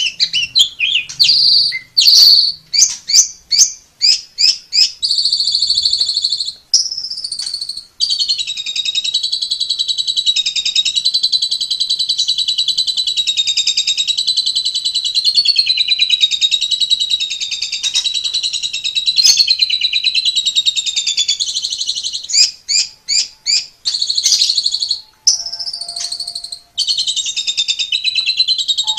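Asian pied starling (jalak suren) singing: a run of quick, high repeated notes, then a long unbroken wavering warble lasting about thirteen seconds, then quick repeated notes again.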